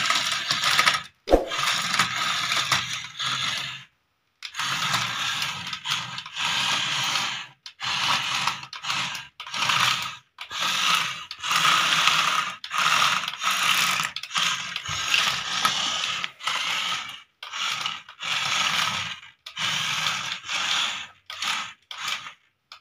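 Small electric motor and plastic gears of a battery-powered toy vehicle whirring and grinding, in many short stop-start bursts.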